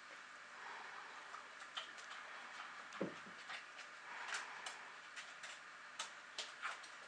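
Irregular light clicks and taps of a dog moving about on garden paving stones, with one louder knock about three seconds in.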